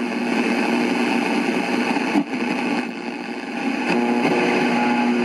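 Sears SEEK AM/shortwave tuner module playing through its speaker just after being switched on: loud static hiss with several steady whistling tones over it, and a faint click about two seconds in. It stays loud even with the volume turned down, which the owner puts down to a problem with the AVC.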